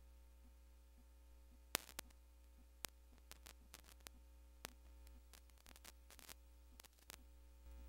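Table tennis ball ticking off paddles and the table: sharp taps, singly and in quick runs, starting a couple of seconds in, the first the loudest. A steady low hum lies underneath.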